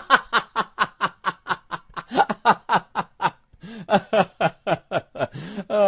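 A person laughing in a quick run of short 'heh-heh' bursts, about four or five a second. It breaks off briefly partway through, resumes, and ends on a longer drawn-out note.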